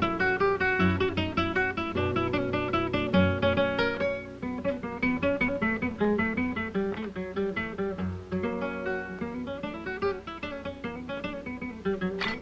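Film score music: fast runs of plucked string notes, with a low pulsing bass for the first four seconds and a sharp accent just before the end.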